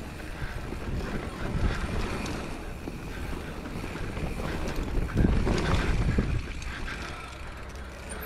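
Mountain bike descending a wet dirt trail: wind rushing over the body-worn camera's microphone, with tyre rumble on the dirt and short knocks and rattles from the bike over bumps. It grows louder a little past halfway.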